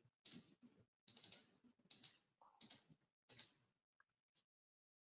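Faint computer clicking, mouse and keyboard: five quick clusters of sharp clicks about two-thirds of a second apart, then two faint ticks near the end.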